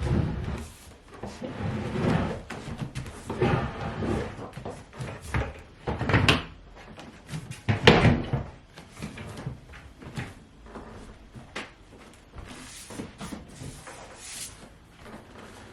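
Wooden IKEA SMÅSTAD bench and storage box being shifted and set into place: a series of irregular knocks, bumps and scrapes, the two loudest knocks about six and eight seconds in.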